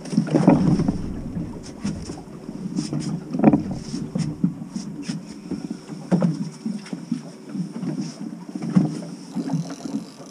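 A small fishing boat rocking at sea, with water slapping against the hull in uneven surges every few seconds and wind on the microphone.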